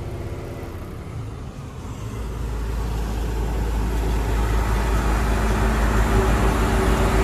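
Heavy truck driving along a highway: engine and road noise, with a deep rumble that comes in about two seconds in and grows steadily louder.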